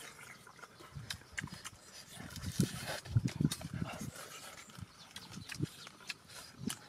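A person eating noisily: irregular wet chewing and lip-smacking, with short low thuds.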